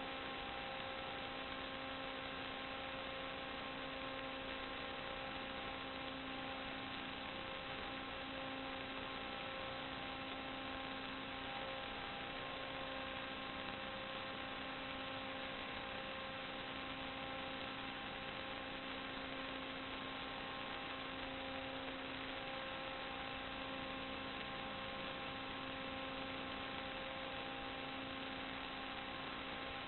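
Steady electrical hum made of several fixed tones over an even hiss, unchanging throughout: the noise of an analog FPV video link's audio channel, which carries no real sound.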